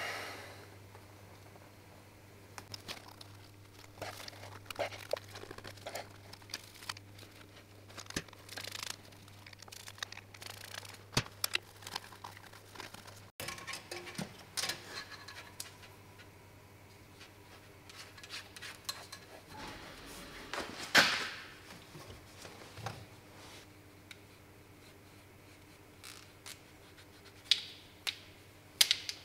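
Hand work with tools and small parts: scattered clicks, rustles and light knocks, with one sharper, louder clack about two-thirds of the way through, over a faint steady hum.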